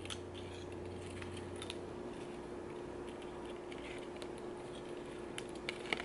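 Faint scattered clicks and light scratches from a budgie picking at and gripping a wooden and wicker bird toy held in the hand, over a steady faint hum. The clicks come more often near the end.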